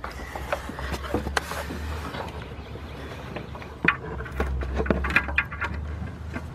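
Scattered small clicks and scrapes as a gloved hand turns a new oxygen sensor into its threaded port on the exhaust, over a steady low rumble. The sharpest click comes about four seconds in.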